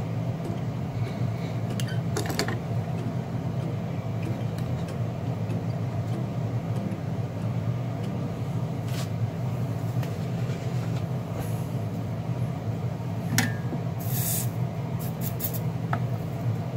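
A steady low hum throughout, with a few light clicks and taps from small parts and tools being handled on the bench.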